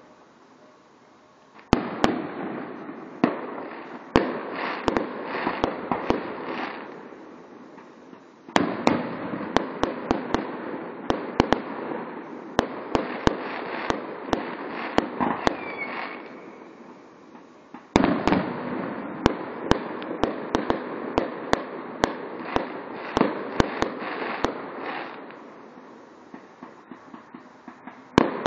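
Fireworks going off: after a brief lull, three runs of rapid crackling pops, each starting suddenly and dying away over several seconds.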